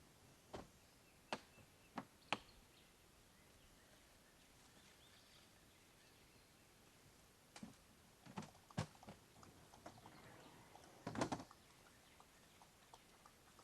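Near silence broken by scattered faint clicks and knocks: a few in the first couple of seconds, a quiet stretch, then a run of them with the loudest cluster about three-quarters of the way through.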